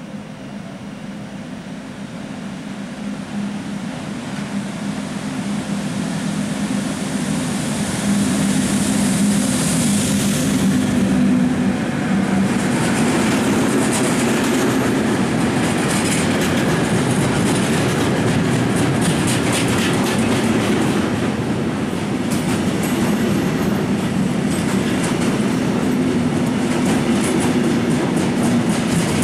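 ÖBB class 1144 electric locomotive approaching with a freight train, with a steady hum that grows louder over the first eight seconds. Then the freight wagons rumble past close by, their wheels clicking rapidly over the rail joints.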